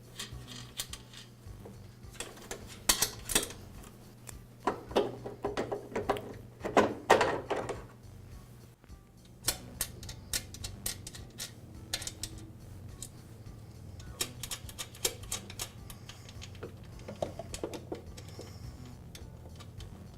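Hand tools and metal parts clicking and clattering in irregular bursts, with a few runs of rapid clicks, as the wheel adjuster brackets are unbolted from a lawn mower deck.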